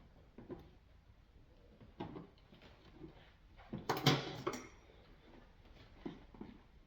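Scattered clicks and knocks of hands and tools working at a stuck coolant hose, with a louder clatter lasting under a second about four seconds in.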